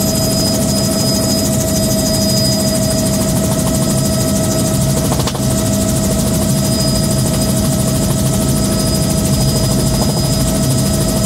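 Bell 206B3 JetRanger in cruise flight, heard from inside the cabin with the doors removed. Its Allison 250 turboshaft gives a steady whine, and the rotor a fast, even beat, over wind rushing through the open doorways. A brief click comes about five seconds in.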